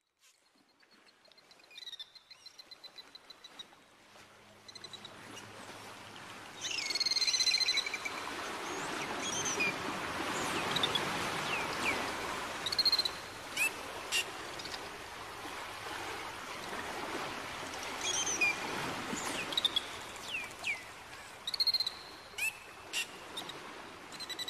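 Dolphin whistles and clicks recorded underwater: a fast, even click train about two seconds in, then gliding whistles and short chirps, the loudest whistle about seven seconds in, over a steady hiss of water noise.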